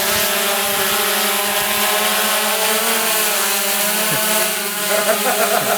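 Quadcopter drone's propellers buzzing steadily, several pitches held together with a slight wavering as it holds position in a breeze.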